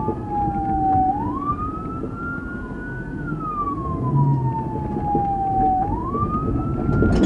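Police car siren on a slow wail, its pitch sweeping down and up twice, over the low rumble of the patrol car's engine and tyres.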